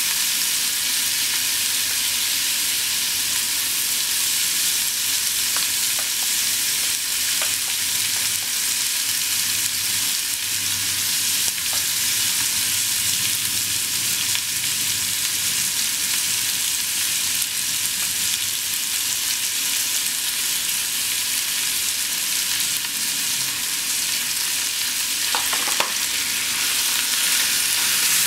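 Thinly sliced beef sizzling steadily in a small nonstick frying pan over a gas flame, with a few faint pops.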